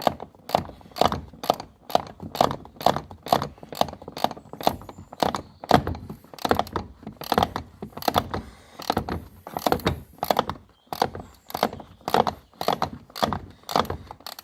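Spanner working the final door hinge bolt loose: a steady run of sharp metallic clicks, about two to three a second, stroke after stroke.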